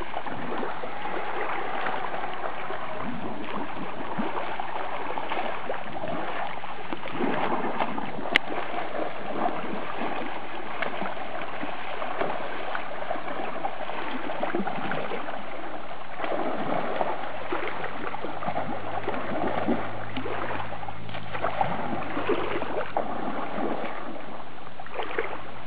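Continuous splashing and sloshing of river water as young Asian elephants bathe and play, throwing up spray, with a single sharp click about eight seconds in.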